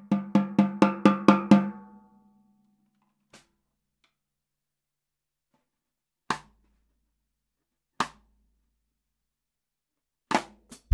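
Vintage Premier birch 14 x 10 inch snare drum with a coated Ambassador head, struck with sticks. A run of about eight even strokes, about five a second, rings on briefly at a steady pitch. Then come a light tap, two single sharp hits spaced apart, and a few quick strokes near the end.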